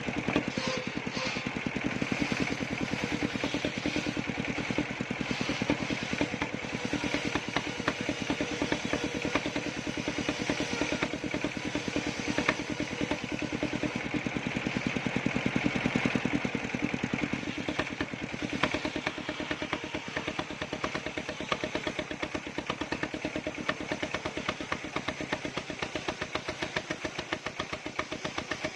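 Engine powering a circular saw machine, running steadily with rapid, even firing beats.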